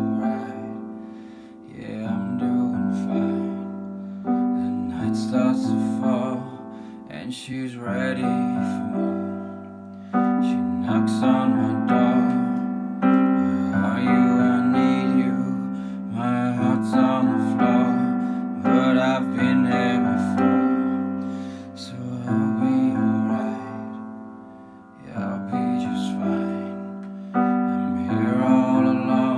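Electronic keyboard played with a piano sound: slow chords struck every few seconds and left to die away, with a melody line above them.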